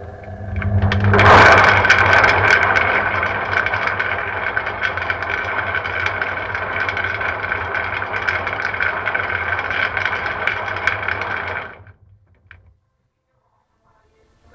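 Washing machine loaded with mussels running steadily, with many sharp clicks over a low hum. It builds up in the first second and stops about twelve seconds in.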